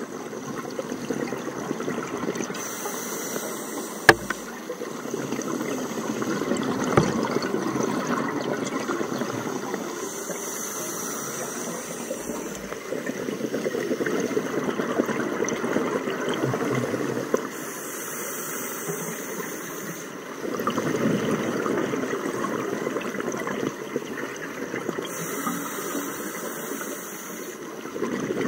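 Scuba regulator breathing underwater: a hissing inhale through the regulator four times, about every seven to eight seconds, each followed by a long rush of exhaled bubbles. A single sharp click about four seconds in.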